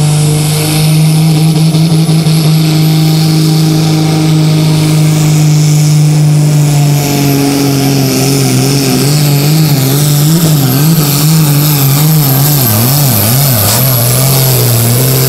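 Turbocharged diesel engine of a Super Sport class pulling tractor at full load, dragging the weight sled. It runs at a steady pitch for the first half, then its speed wavers quickly up and down through the second half and drops near the end, with a thin high turbo whine above it.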